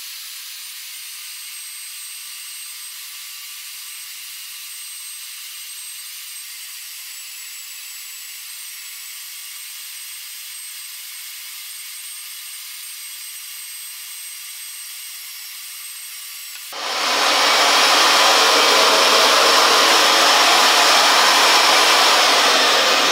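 Evolution EVOMAG75 magnetic drill running a 1-inch annular cutter through steel, its audio sped up so that it sounds thin and high with a faint whistling tone. About 17 seconds in it turns abruptly much louder and fuller as the cutting continues.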